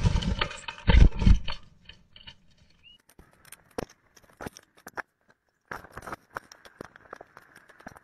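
A bluebird inside a wooden nest box building its nest. In the first second and a half its wings flutter and thump as it flies in and lands. After that come quieter scratches, clicks and rustles of its claws on the bare wood floor and in dry grass nesting material.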